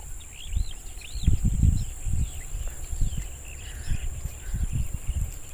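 Short, arched bird chirps, several in the first two seconds and fainter ones after, over a steady high insect drone, with irregular low rumbling bumps on the microphone.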